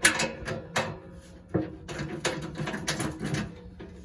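Irregular sharp metallic knocks and clinks of hand tools and fasteners against a leaf blower's metal covers as they are bolted back on, about half a dozen distinct knocks over a faint steady hum.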